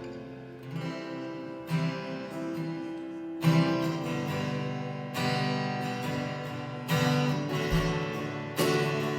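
Acoustic guitar strumming ringing chords, one strum about every second and a half, with no singing.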